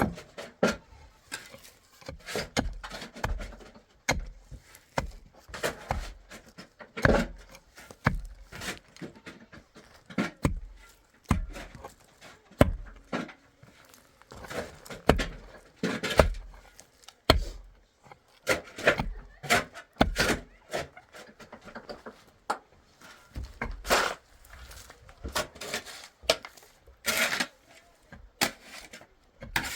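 A series of irregular knocks and thuds, roughly one or two a second, some with a deep low thump.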